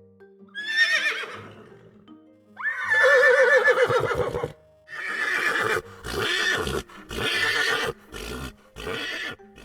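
A horse neighing: a short whinny about half a second in, a long, loud, quavering neigh about three seconds in, then five shorter bursts. Soft background music plays underneath.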